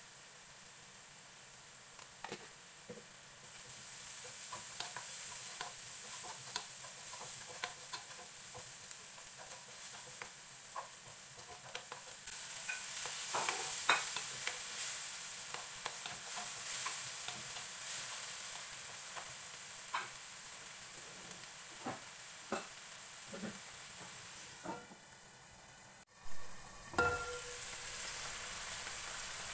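Onion, garlic and chopped tomato sizzling in a nonstick frying pan as they are stirred with a spatula, with repeated scrapes and taps against the pan; the sizzle grows louder a few seconds in. Near the end a glass lid clinks onto the pan.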